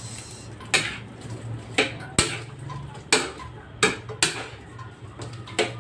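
A cooking utensil stirring in a pan and knocking against it, with about seven sharp clinks at irregular intervals over a low steady hum.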